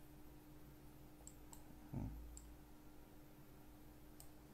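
Faint computer mouse clicks, a few sharp ticks spread out, over quiet room tone with a faint steady hum. A short low thump about two seconds in.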